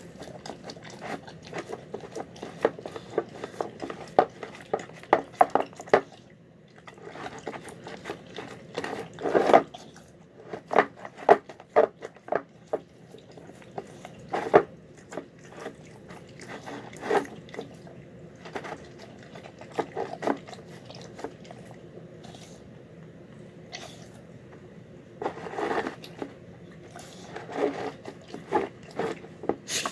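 A dog eating a home-cooked meal of chicken, rice, pinto beans, carrots and peas, in irregular bouts of chewing and crunching with short pauses between them.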